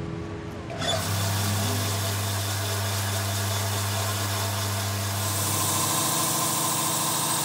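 Electric stone-cutting circular saw running with a steady low hum and hiss; about five seconds in the hum drops and a higher grinding hiss takes over as the blade cuts into a red flint nodule.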